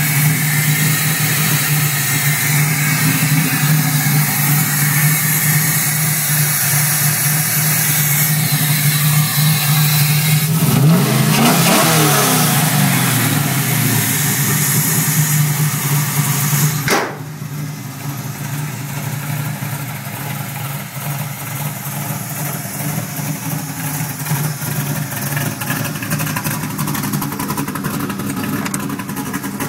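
Chevrolet LS2 V8 running with the hood open, given one blip of the throttle about a third of the way in that rises and falls in pitch. A sharp click comes a little past halfway, after which the engine sounds noticeably quieter as it keeps idling.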